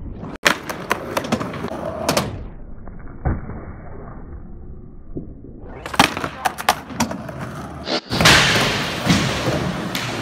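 Raw skateboard sound: several sharp clacks of the board popping and landing, and wheels rolling on concrete. About eight seconds in, a louder steady rolling noise begins.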